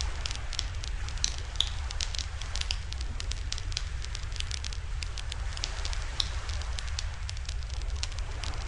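Wood campfire burning in a fire stand, crackling with frequent irregular sharp pops, over a steady low rumble.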